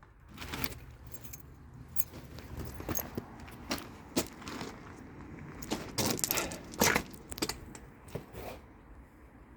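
A bunch of keys jangling, with scattered clicks and taps in several short clusters, the loudest a little past the middle.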